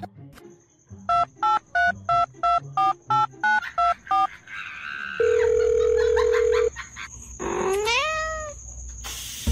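About ten quick telephone keypad beeps, each a pair of tones, then a steady phone tone for about a second and a half, then a kitten meowing once near the end. The phone sounds are dubbed in as a finger presses the kitten's nose like buttons.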